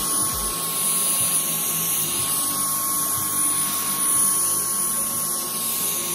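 Dyson Cyclone V10 cordless stick vacuum running steadily: a rush of air with a thin, steady high-pitched motor whine over it.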